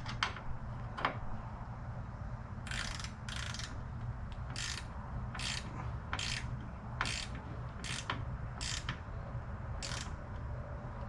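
Socket ratchet clicking in short strokes, about one a second, as a 10 mm nut is cranked down tight onto a bolt.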